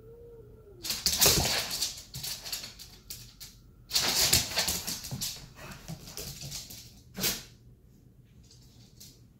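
A dog whines briefly. Then come two loud, noisy bursts of scuffling and huffing as the dog lunges at a cat, and a shorter burst a few seconds later.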